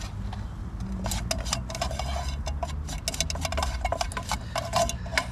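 Spatula scraping and tapping around a thin-bottomed camping frying pan, stirring a butter-and-flour roux: a quick, irregular run of small clicks and scrapes that starts about a second in.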